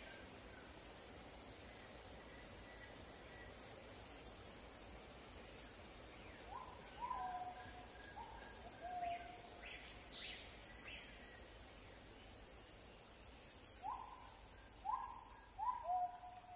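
Steady high-pitched drone of insects in a tropical plantation, with a bird calling repeatedly: short notes that step down from a higher to a lower held pitch, in a run of three or four about halfway through and again near the end.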